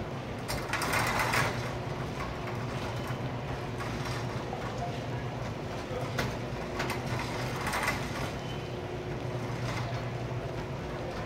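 Shopping cart rolling over a store floor: a steady low rumble from its wheels, with short clatters from the cart a few times along the way.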